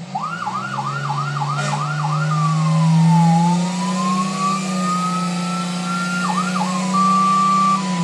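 Siren sound effect played through a small LED Bluetooth speaker. It starts suddenly with a fast yelp of about three rising sweeps a second, goes into one slow fall and rise, gives two more quick yelps, and ends on a two-tone hi-lo, all over a steady low drone.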